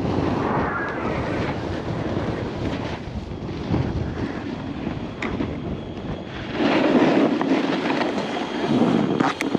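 Snowboard sliding over packed snow, a steady rough scraping mixed with wind buffeting the microphone. The scraping grows louder about seven seconds in, as the board slows on arrival at the lift.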